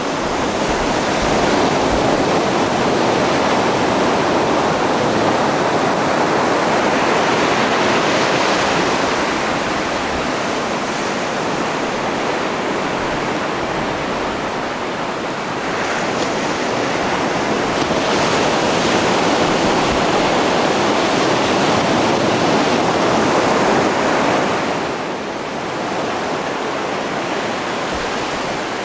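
Ocean surf breaking and washing up the beach, a continuous rush that swells and eases a few times.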